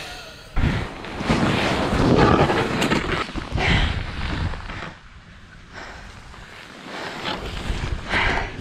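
Wind buffeting a GoPro action camera's microphone in rushing gusts, loud through the first few seconds, easing off about five seconds in, then rising again near the end.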